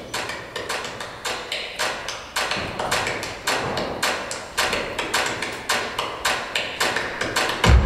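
Flamenco percussion from the performers: an even beat of sharp, dry strikes, about three a second. Near the end a recorded music track with heavy bass comes in over it.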